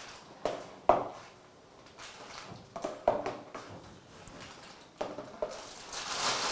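A spoon knocking and clinking against a bowl and a piping bag as the bag is filled with cream: a few separate knocks, the loudest about a second in. Near the end the piping bag rustles as it is handled.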